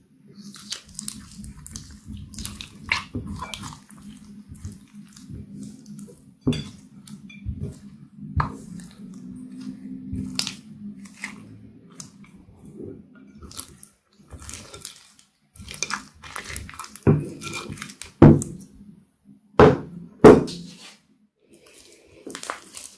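Hands squishing, kneading and stretching clear slime as eyeshadow powder is worked in: wet, sticky squelches and crackles, with a few louder sharp pops in the last third.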